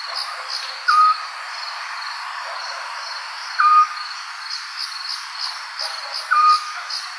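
A night bird gives a short, clear whistled note three times, about every three seconds, over steady pulsing cricket chirping.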